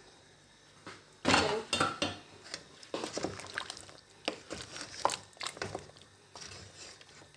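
A spoon stirring meat and spices through soup in a stone-coated cooking pot, with repeated clinks and scrapes against the pot that start about a second in.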